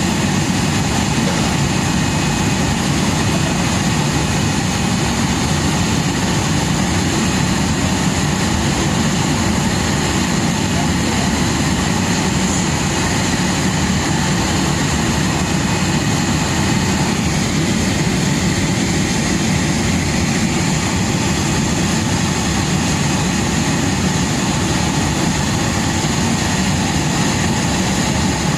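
Steady, unbroken drone of engines and machinery around an airliner being refuelled by a hydrant dispenser truck, with a thin steady high whine above it.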